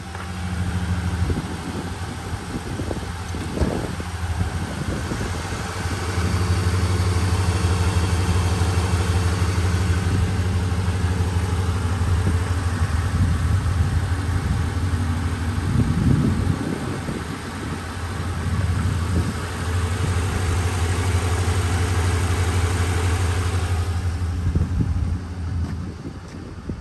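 High-mileage 2008 Ford F-150 pickup engine idling steadily, heard from over the open engine bay, with a steady low hum that fades near the end.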